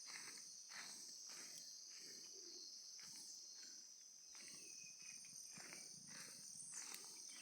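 Faint footsteps at a steady walking pace, with a steady high-pitched insect trill throughout.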